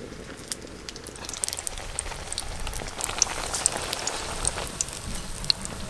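Battered potato chops (aloo chop) deep-frying in hot refined oil in a metal wok: a steady sizzle with many small pops and crackles scattered through it.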